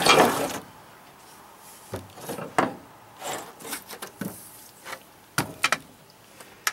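Old wooden axe handles handled on wooden deck boards: a scrape right at the start, then a scatter of light wood-on-wood knocks and clacks as they are picked up and set upright.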